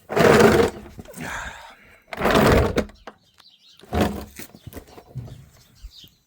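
Four short bursts of scraping and knocking, with quiet gaps between, from someone moving about underneath a van.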